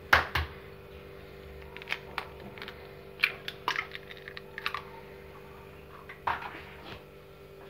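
Scattered light clicks and taps of plastic from a kitchen mixing jug and its hand mixer being handled, over a faint steady hum.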